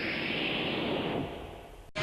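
A whooshing rush of noise, like a swoosh sound effect, that fades away over the second half and cuts off suddenly just before the end.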